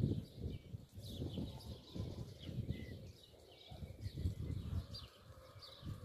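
Small birds chirping in short, repeated notes, over a low rumble that comes and goes in gusts.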